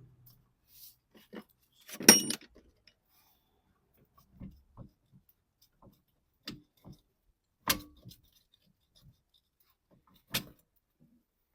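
Metal hand tools clinking and clanking against the car's suspension hardware as spanners and sockets work on its nuts and bolts. A loud ringing metal clank comes about two seconds in, two more sharp clanks follow later, and lighter clicks fall between them.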